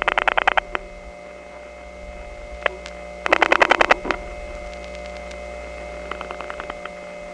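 Dial-pulse crosstalk on a No. 1 step-by-step telephone line: rapid trains of pulse clicks from other subscribers' dialing, three bursts of which the middle is loudest, leaking in through adjacent trunk wire pairs and the office's unbalanced power. Underneath, the step office's single dial tone and a whining power-supply noise run steadily.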